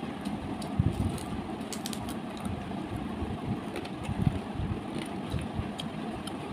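Steady low background rumble with faint scattered clicks and smacks from fried fish being pulled apart by hand and chewed.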